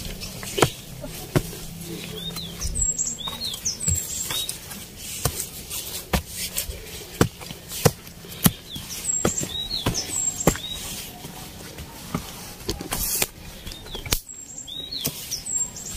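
Footsteps crunching and scuffing on a dirt trail strewn with dry leaves, irregular, about one a second. A forest bird calls in short phrases of quick rising-and-falling chirps, repeated about every six seconds.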